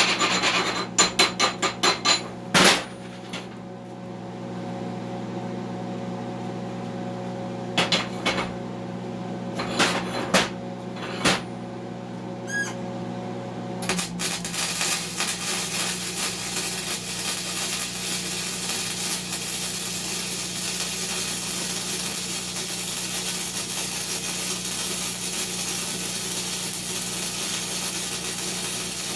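A quick run of metallic clicks and a few separate knocks on the steel over the steady hum of the welding machine, then about 14 seconds in a wire-feed (MIG) welding arc strikes and runs with an even crackling hiss.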